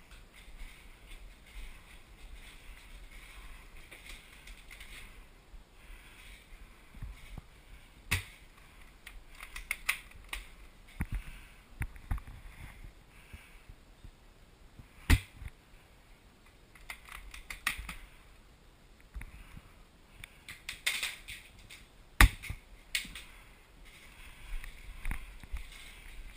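Footsteps on a bare wooden floor, with an airsoft player's gear and rifle clicking and rattling. A few sharp knocks stand out; the loudest comes about halfway through and another near three-quarters of the way.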